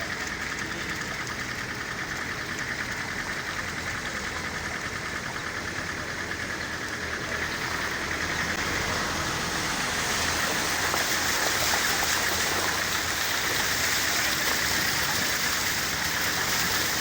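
Steady rushing and hissing of flowing water, growing a little louder about halfway through.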